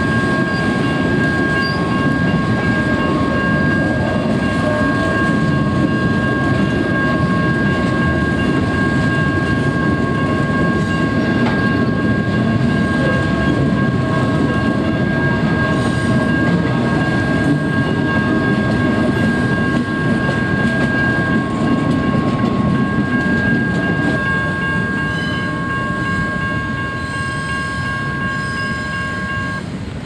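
Amtrak passenger cars and RoadRailer trailers rolling past close by: a loud, steady rumble and clatter of steel wheels on rail. A steady high tone sits over it and cuts off near the end.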